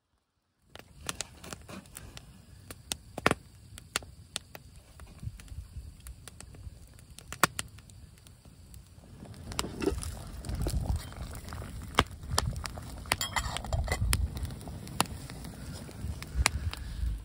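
Log campfire crackling, with frequent sharp pops and snaps. A low wind rumble on the microphone grows stronger about halfway through.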